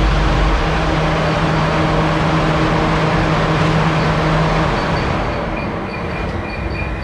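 Race-built Swiftune 1380 cc four-cylinder A-series Mini engine on twin Weber 45 DCOE carburettors running hard on a rolling road at steady revs. It eases off a little before five seconds in, and a thin high whine comes in.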